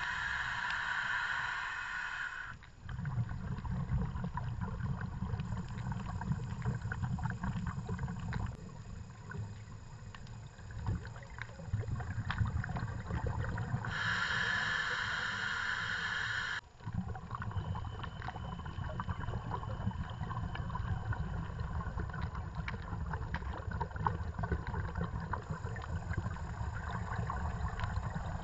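Scuba diver breathing through a regulator, heard through an underwater camera housing: a hissing inhale near the start and another about halfway through, each lasting about two and a half seconds, between long stretches of low bubbling from the exhaled air, over a fine crackle of clicks.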